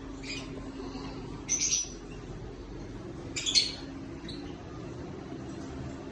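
Lovebirds giving short, shrill chirps, three main calls with the loudest about three and a half seconds in, over a steady low hum.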